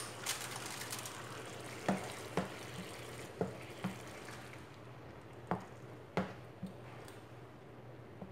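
A slotted spatula stirring tomato sauce in a frying pan, knocking against the pan about eight times, over a faint steady hiss.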